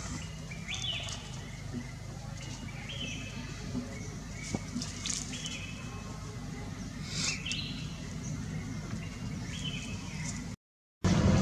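Short high chirping calls, repeated many times, over a steady low hum and scattered clicks. Near the end the sound cuts out for a moment, then a much louder, rushing noise comes in.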